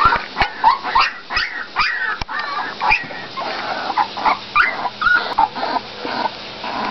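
Litter of young Olde English Bulldogge puppies crying, many short high-pitched cries overlapping one another, with a few sharp clicks in the first few seconds.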